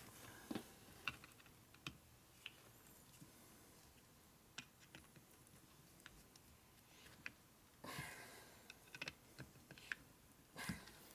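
Faint, irregular small metal clicks and ticks of a screwdriver working the throttle-disc screws of an S&S Super E carburetor, loosening them so the throttle disc can self-center in the bore. A brief scrape comes about eight seconds in and a sharper knock right at the end.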